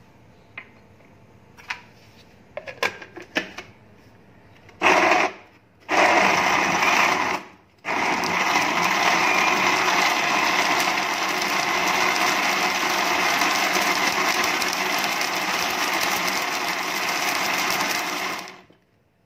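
Countertop blender grinding falsa berries with mint leaves and water: two short pulses, then a long steady run of about ten seconds that cuts off near the end. Before it starts, a few light clicks and knocks.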